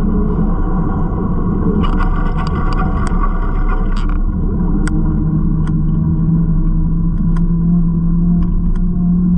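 Riding noise of a bicycle on a city street: a steady low rumble with a faint hum, and scattered light clicks and rattles from about two seconds in.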